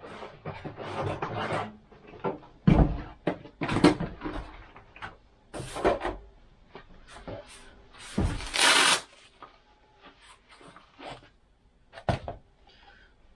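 Handling noise: a string of short knocks, clunks and rustles as things are picked up and moved about, with a longer, louder scraping or rustling burst a little past the middle.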